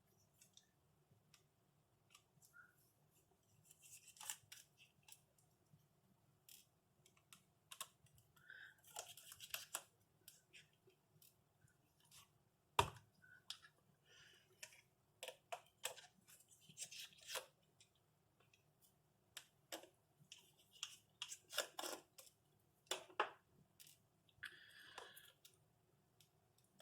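Faint, scattered clicks and scrapes of a small Phillips screwdriver turning out the four small screws that hold a laptop's screen panel, with one sharper click about halfway.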